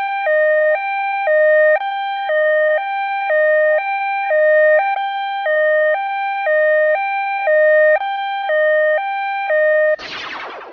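Two-tone hi-lo emergency siren of the cartoon's rescue vehicles, alternating a high and a low note about every half second. Near the end it gives way to a brief whoosh that fades out.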